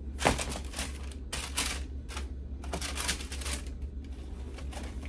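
Rustling and scraping handling noises as a pair of sneakers is handled, coming in four or five short bursts over a steady low hum.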